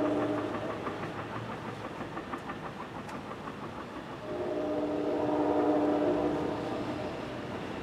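Train's multi-chime air horn sounding from off-picture: one long blast ends just after the start, and a second long blast sounds from about four seconds in to about seven seconds. Between the blasts there is a fast, even clatter.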